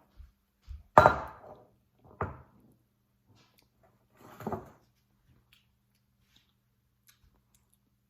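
Kitchenware knocking three times: a sharp, loud knock about a second in, another about a second later, and a softer, duller one a little past the middle.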